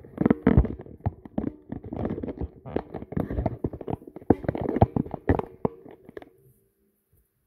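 Handling noise from a hand-held camera: irregular rubbing, scraping and knocks close on the microphone over a faint steady hum, stopping about six seconds in.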